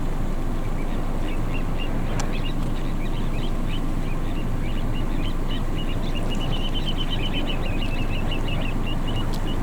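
Little ringed plover calling: repeated short, high piping notes that speed up into a rapid trill a little past the middle and then slow again near the end, over a steady low rumble.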